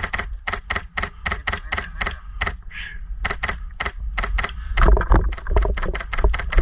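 Airsoft rifle firing a rapid string of shots, about six sharp cracks a second, with a brief break near the middle. A low rumble joins near the end while the shooting goes on.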